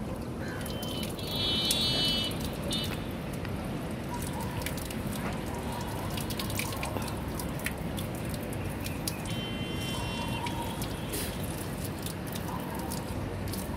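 Water dripping and trickling as small scattered clicks over a steady wash of noise. Two short high-pitched calls, the first about a second in and louder, the second around nine seconds in.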